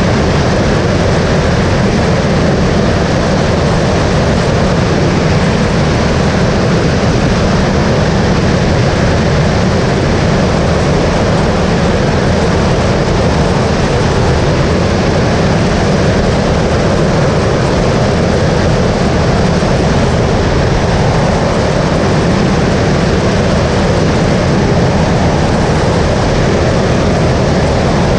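Skyleader 500 light aircraft's engine and propeller running steadily in flight, a loud, unchanging drone.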